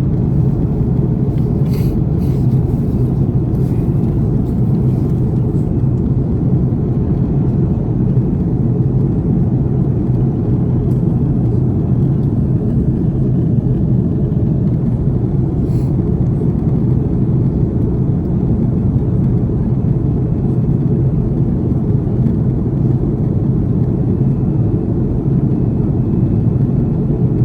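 Steady low rumble of an Airbus A330 airliner's cabin with its jet engines running, unchanging throughout, with a couple of faint ticks.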